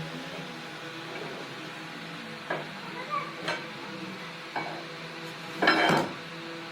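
Stick (arc) welding on a steel shaft: a steady crackling sizzle over the welding machine's hum, with a few sharp clicks and a louder burst of crackle about six seconds in.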